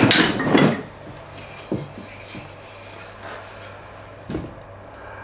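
Wooden pieces clattering and knocking together as they are rummaged through in a box, the rattling dying away within the first second, then two single wooden knocks as a piece is handled.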